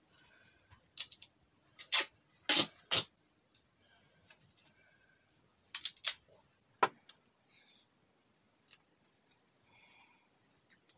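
Gaffer tape pulled off the roll in a series of short, loud rips, four between one and three seconds in and another cluster around six seconds in, as it is wrapped around a work glove.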